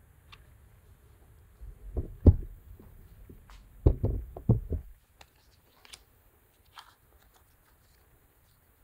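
Low thumps and knocks of handling, in two short clusters about two and four seconds in.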